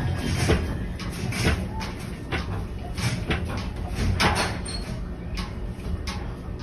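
Rattling and many irregular knocks over a low rumble: doors and fittings shaking in a strong earthquake.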